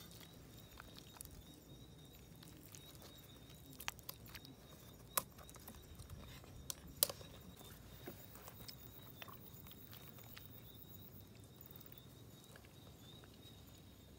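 Faint sounds of people eating with their hands from plates: a few sharp clicks and taps, mostly between four and seven seconds in, over a steady faint high whine.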